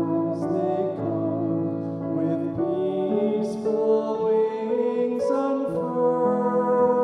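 Slow, gentle worship song: singing voices with keyboard and violin accompaniment.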